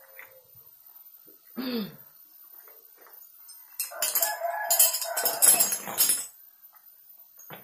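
Rooster crowing once, a loud call of about two and a half seconds starting about four seconds in, with a short falling call earlier on.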